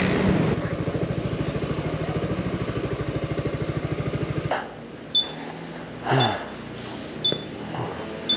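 Yamaha XMAX scooter's single-cylinder engine idling with a steady, even pulse, then switched off about four and a half seconds in. After it stops come a few short knocks and several short high beeps about a second apart.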